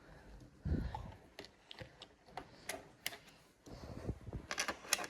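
Scattered light clicks and taps of small handling noises, with a soft thump about two-thirds of a second in and a quick cluster of clicks near the end.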